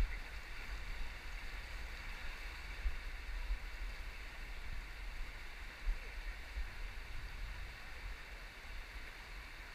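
Shallow river rapids rushing steadily over rocks, with wind rumbling on the microphone.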